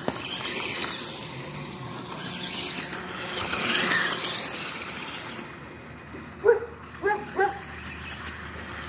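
Reely ARX540 RC dirt bike running over a gravel road, its sound swelling as it passes close about four seconds in, then fading. Past the middle, a dog barks three times.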